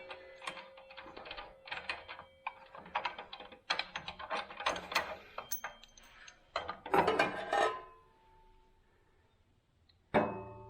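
Metal parts clinking, rattling and scraping as the arbor nut, washer and blade are taken off a table saw. There is a sharp metallic clank with a short ring about ten seconds in.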